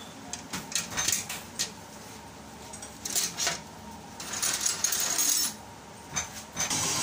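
Metal spanners and fittings clinking and clattering in irregular quick clusters.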